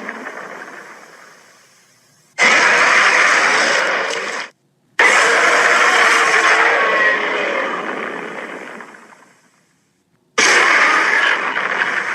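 Film King Kong roar sound effects, mixed from several films' Kong roars. A roar fades out, then come three loud, rough roars with brief silences between them: the second stops abruptly, the third tails off slowly, and the last cuts off suddenly.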